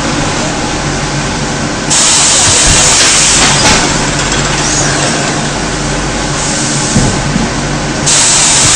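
Loud, steady hiss and low hum of industrial machinery at a pneumatic high-frequency welding press. The hiss turns suddenly louder and brighter about two seconds in and again near the end.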